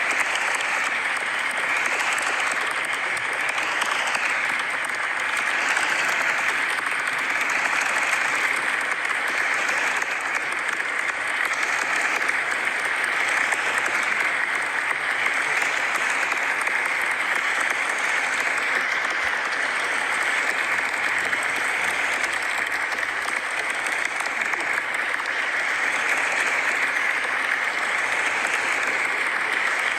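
Crowd applause: many people clapping at once, steady and sustained.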